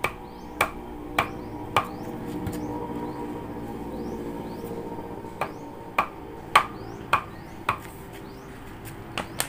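Hammer blows, struck at a steady pace about 0.6 s apart: four blows, a pause of about three seconds, then five more, with two lighter taps near the end.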